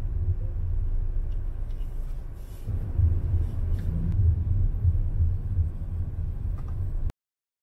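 Low, steady rumble of a car driving, heard from inside the car, dipping briefly partway through. The sound cuts off suddenly to dead silence near the end.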